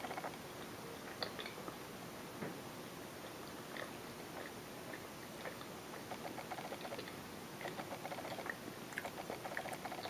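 Quiet mouth sounds of a person chewing a soft, moist apple cider muffin, with small wet clicks here and there.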